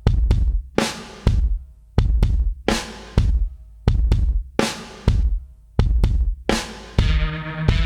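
Music with a heavy drum beat, bass drum and snare hitting about every two-thirds of a second, with fuller music with sustained bass notes coming in near the end.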